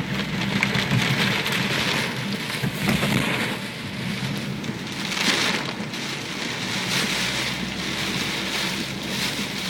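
Steady rushing of a typhoon-swollen river in flood, risen nearly to the road, swelling and easing in waves, with a low steady hum underneath.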